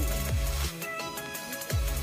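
Electronic dance music with deep bass notes that drop in pitch, two near the start and another near the end.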